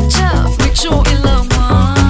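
Background music with a steady beat and a sung vocal line.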